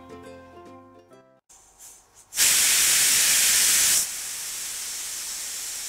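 Prestige pressure cooker's whistle letting off steam: a sudden loud hiss starts about two seconds in. After a second and a half it settles into a quieter steady hiss. This whistle shows the cooker has come up to pressure, and each one is counted as a stage of the cooking.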